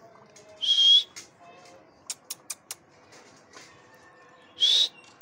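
A person calling the husky puppies with two short, breathy, high-pitched squeaks, one about a second in and one near the end. Between them comes a quick run of four sharp clicking sounds.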